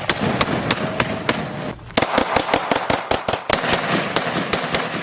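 Rapid gunfire from semi-automatic firearms: sharp shots fired in quick strings, often several a second, with echo filling the gaps and two brief lulls.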